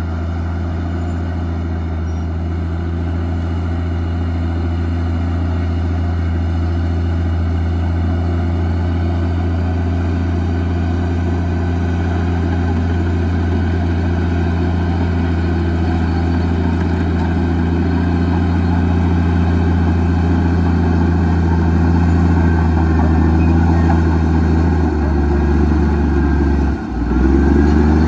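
Komatsu D58E bulldozer's diesel engine running steadily, slowly getting louder. About three seconds before the end, the engine note shifts, dips sharply for a moment and picks up again.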